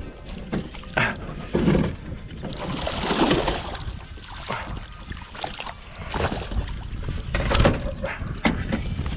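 Irregular knocks, scrapes and splashes from handling in a small boat, over a steady low rumble.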